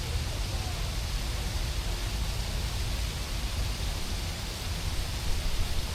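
Steady hiss of rain and wet city street ambience over a low, continuous rumble.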